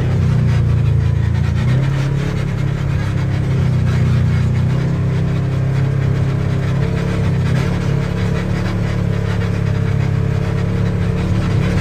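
Side-by-side UTV engine running steadily with an even low hum as the machine drives over sandy trails.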